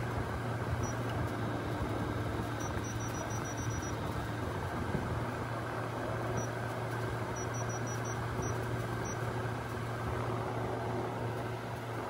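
Marq 1.5-ton window air conditioner running, a steady low hum under even fan and airflow noise. Its control panel gives short high beeps at button presses, once at a time and in quick runs of several while the set temperature is stepped.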